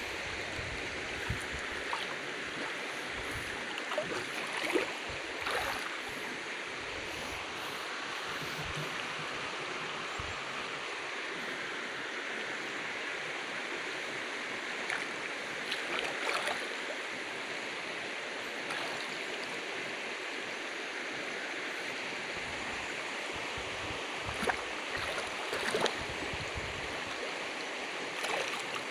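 Shallow river water running steadily over rocks, an even rushing hiss, with a few brief louder noises now and then.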